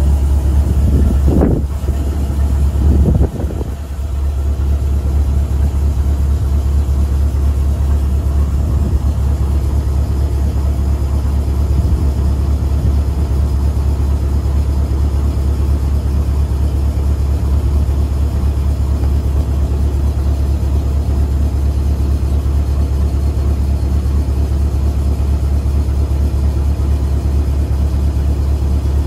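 Scania R143 V8 diesel engine running steadily at idle while the wrecker's hydraulic underlift boom is worked. There are two brief louder sounds in the first few seconds.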